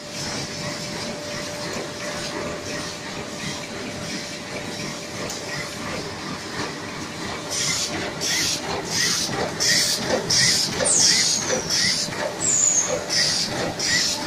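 Automatic facial tissue film packing machine running with a steady mechanical clatter. From about halfway, short sharp hisses repeat a little under twice a second, and two brief high squeals sound near the end.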